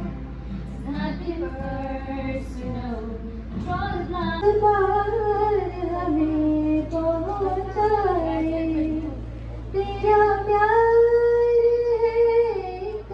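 A young woman singing into a microphone, holding long notes that step up and down in pitch. A low steady hum runs underneath.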